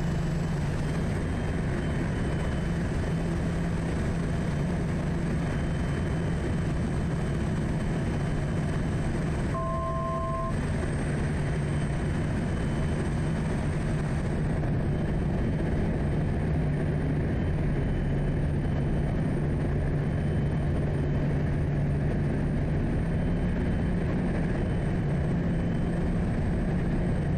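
Quest Kodiak's turbine engine and propeller droning steadily in the cockpit at reduced power on approach, slowing to 70 knots. A brief two-tone beep sounds once about ten seconds in.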